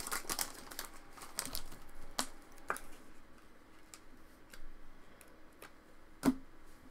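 Foil trading-card pack wrapper crinkling as the cards are slid out, then scattered light clicks of chrome trading cards being flipped and tapped against each other, with one sharper click about six seconds in.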